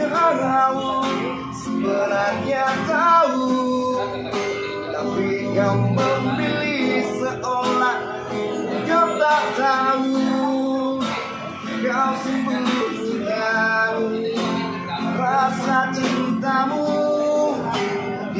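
A man singing while strumming and picking a steel-bodied black acoustic guitar in a live, unamplified performance.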